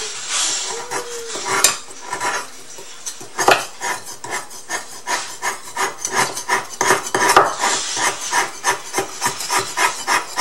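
Chef's knife shaving and chopping a hard cake of palm sugar on a wooden cutting board: scraping strokes, a few scattered ones at first, then a quick, even run of about three a second from about four seconds in.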